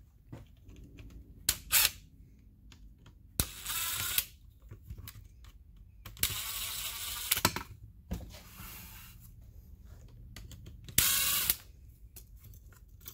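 Cordless drill-driver backing out the screws of the motor housing's clamping strap, in three short bursts of whirring, with a few sharp clicks between them.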